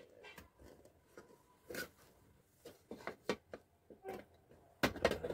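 Scattered small clicks and taps of a nut being fitted onto a DC power jack inside the decoder's cabinet and tightened with pliers, with a louder click near the end.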